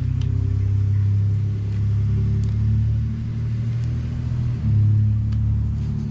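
Background music carried by a deep, sustained bass line, the bass notes stepping to a new pitch about four and a half seconds in.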